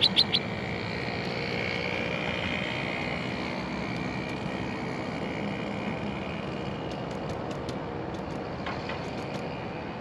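A steady engine drone in the distance, with a few sharp bird chirps in the first half second and a few faint high ticks near the end.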